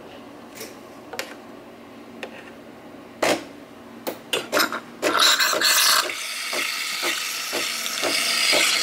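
Nespresso capsule coffee machine starting a brew: a few clicks and knocks, then about five seconds in its pump comes on with a loud hiss and runs with a steady pulsing, about two pulses a second, as it dispenses into a mug.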